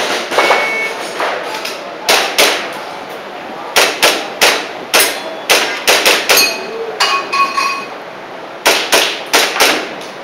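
Airsoft pistol shooting a practical-shooting string: about twenty sharp cracks in quick runs of two to four shots, with short pauses between groups.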